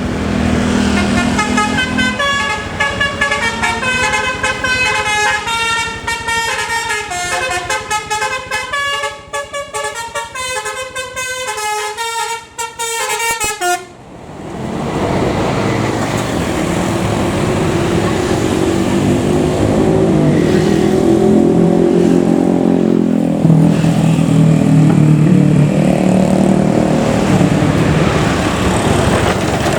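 Scania K410 bus's 'basuri' telolet musical horn playing a fast melody of many short stepped notes for about fourteen seconds, then cutting off. The bus's engine and road noise follow, a steady low-pitched running sound.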